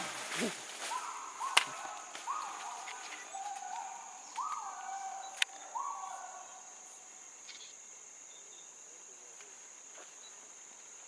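Eastern chimpanzees screaming more faintly, a run of short high calls that rise and fall and die away over the first six seconds, over a steady high insect drone. Two sharp clicks stand out among the calls.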